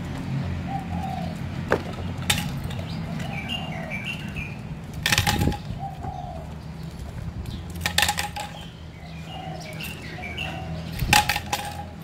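A pipe and a dog's chain clattering and scraping on asphalt as the dog picks up and drops the pipe: several clatters, the loudest about five seconds in and near the end. Faint bird chirps and a steady low hum lie under them.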